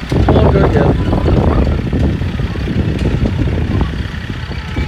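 Barrel train rolling past: the green John Deere utility tractor's engine running as it pulls the carts, with the barrel cars' wheels and hitches rattling over the grass in a steady low rumble with many small clicks. Children's voices come through in the first second.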